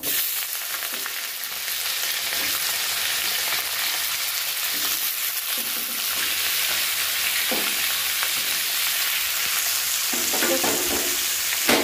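Chunks of elephant foot yam and potato frying in hot mustard oil in a kadhai, a steady sizzle as they are stirred with a spatula.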